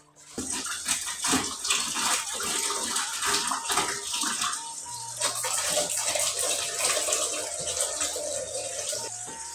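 Water splashing and sloshing in an electric rice cooker's pot as hands work inside it, a steady rush of noise full of small irregular splashes.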